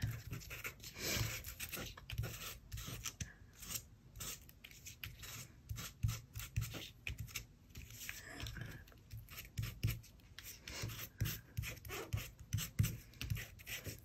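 A hand-held sanding tool scratching over the edges of die-cut paper pieces in short, irregular strokes, distressing the edges so the white core of the paper shows.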